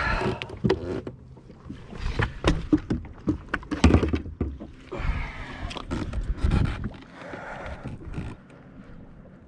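Irregular knocks and thumps in a fishing boat as a freshly caught largemouth bass is handled and unhooked.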